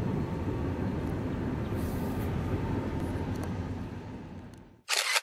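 Wind rumbling on the microphone on open water. It fades out about four and a half seconds in, followed by a short burst of hiss and then an abrupt cut to silence.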